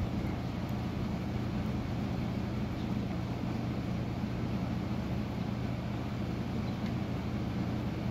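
Encon Monarch 52-inch ceiling fan running, its motor giving a steady low hum over an even hiss.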